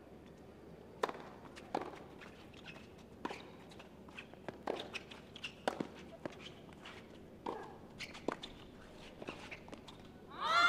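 Tennis rally on a hard court: the serve is struck sharply about a second in, followed by an irregular string of racket hits on the ball and ball bounces, with players' footsteps on the court between them. A burst of voices and cheering from the crowd breaks out right at the end.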